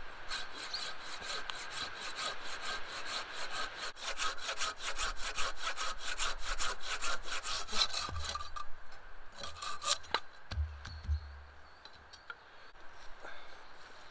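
Hand saw cutting through a green, bark-covered wooden pole in fast, even back-and-forth strokes. The sawing stops about eight and a half seconds in, with a couple more strokes near ten seconds.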